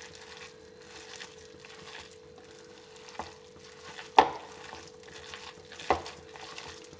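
A hand squishing and kneading a wet mix of grated vegetables and flour in a plastic bowl: a steady soft crackle and squelch. Three sharp knocks sound, about three, four and six seconds in, the one just after four seconds the loudest.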